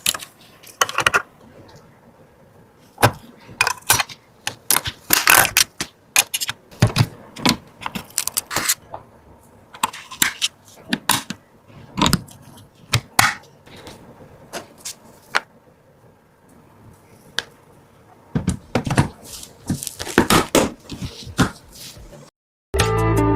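Irregular clicks, taps and light scrapes of computer parts being handled and fitted during a PC build, hard plastic and metal pieces knocking together, with quiet gaps between the handling noises.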